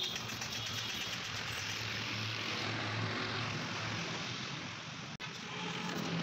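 A motor vehicle engine running steadily, a low hum under a broad rushing noise. The sound drops out for an instant about five seconds in.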